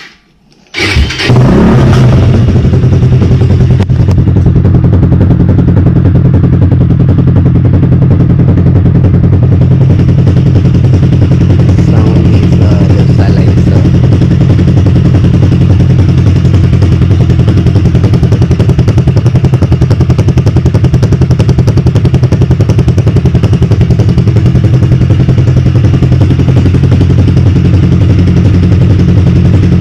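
Hyosung GV250's 250 cc V-twin engine fires up about a second in and settles into a steady idle. It is heard through its stock exhaust with the silencer baffle inserts fitted.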